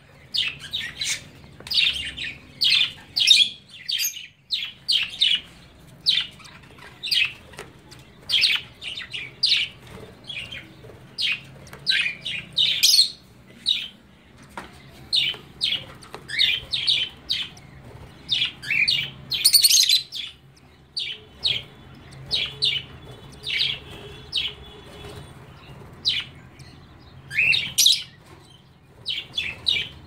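Lovebirds chirping: a busy run of short, shrill calls, one to three a second, some sliding down in pitch, with a few brief pauses.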